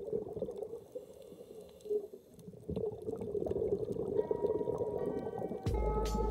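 Muffled, crackly underwater sound, as picked up through a camera's dive housing. Background music fades in about four seconds in, and a bass beat enters near the end.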